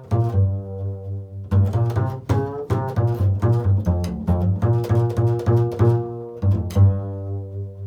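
Improvised music on a low plucked string instrument: a quick, uneven run of plucked notes, each ringing and fading, with short breaks about one and a half seconds in and again near the end.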